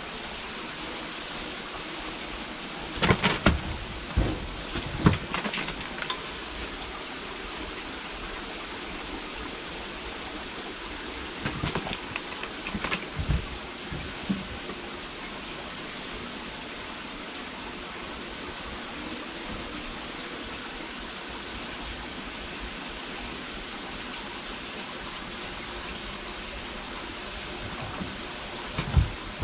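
Steady background hiss with a few short clusters of knocks and thumps: kittens scrambling and landing on a wooden and carpet-covered cat climbing frame. The knocks come about three to six seconds in, again around twelve to fourteen seconds, and once more near the end.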